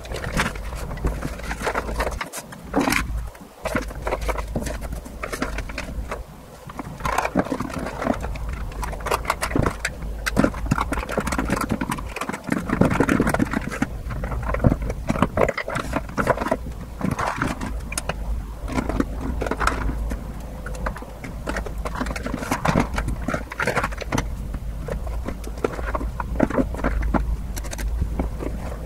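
Plastic makeup compacts, tins and organiser trays being set down and shuffled into a wooden drawer: a busy run of small clicks, knocks and scrapes, over a steady low hum.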